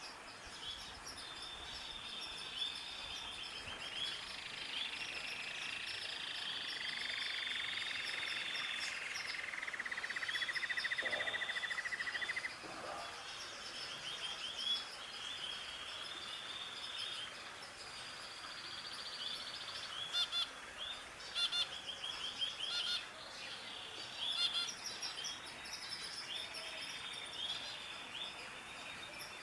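Many birds chirping and calling together. A long rapid trill rises in the middle and cuts off suddenly, and sharp short calls stand out in the second half.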